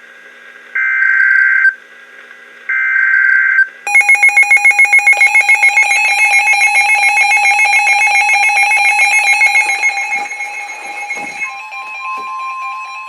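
NOAA Weather Radio emergency alert. Two one-second bursts of the SAME digital header data come first, then from about four seconds in a weather radio receiver's alarm beeps rapidly. Near the end a steady 1050 Hz warning alarm tone sets in, announcing a severe thunderstorm warning.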